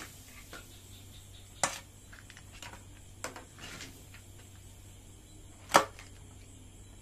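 Serving spoon and crab shells knocking and scraping against a metal tray and wok as cooked mud crabs are ladled out: a few sharp knocks, one about one and a half seconds in and the loudest near the end, with light scraping between.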